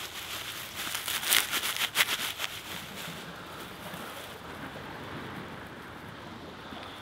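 Dry grass tinder rustling and crackling as hands crumple a bundle of it over the embers of a fire pit, loudest in the first three seconds with two sharp crackles about a second apart, then softer.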